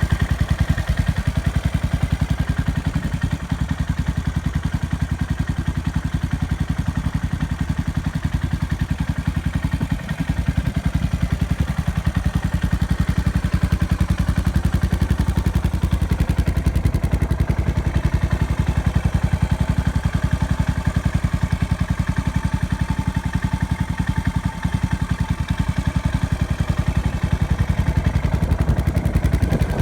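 Yamaha SR400's single-cylinder four-stroke engine running steadily at idle, with an even, rapid pulse.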